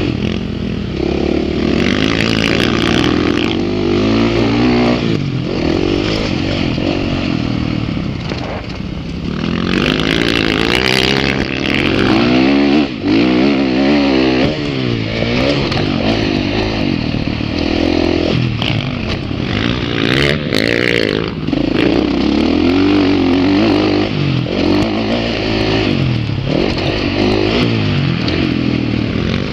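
Dirt bike engine heard from on board, revving hard and backing off again and again as the rider works the throttle and gears, its pitch rising and falling every second or two.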